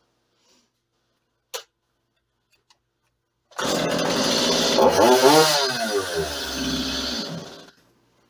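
Stihl MS 210 C chainsaw's two-stroke engine starts about three and a half seconds in, is revved up and down, and is shut off about four seconds later. A single sharp click comes a couple of seconds before it starts.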